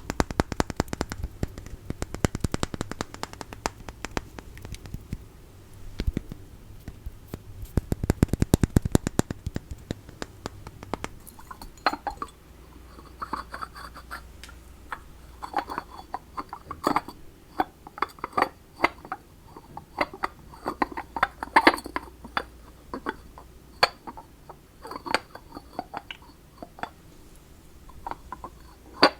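Rapid fingernail tapping and scratching on small objects, then slower, separate taps and clinks on a hard item that rings faintly, like ceramic or glass.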